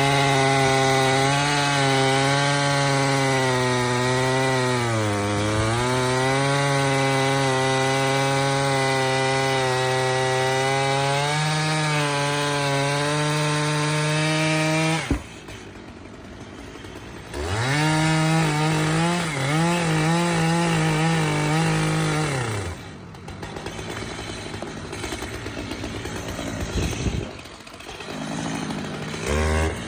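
Stihl MS881 two-stroke chainsaw running at high revs, cutting wood, its pitch sagging under load about five seconds in. It cuts off suddenly about halfway through, then revs up again for a few seconds and drops away, leaving quieter noise with a knock near the end.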